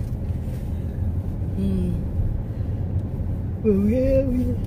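Steady low road and engine rumble inside a moving car's cabin. A voice sounds briefly about two seconds in and again, longer, near the end.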